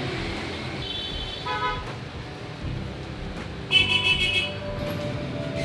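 Vehicle horns honking in street traffic, twice: a shorter, fainter honk about a second in and a louder one about four seconds in, over a steady background of traffic noise.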